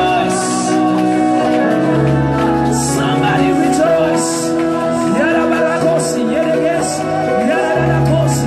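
Live worship music: singers leading into handheld microphones over held chords and a steady bass line.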